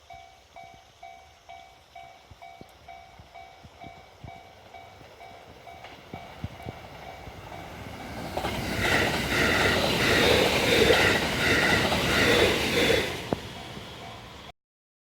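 Japanese level crossing warning bell ringing in a fast, even, repeating ding, then a train running through the crossing, louder for about five seconds in the middle with its wheels clattering on the rails. The sound cuts off suddenly near the end.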